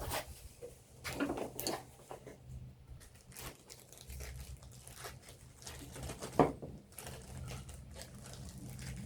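Hands working on small string-trimmer carburetor parts: scattered clicks and rustling, with one sharp knock about six seconds in, over a steady low hum.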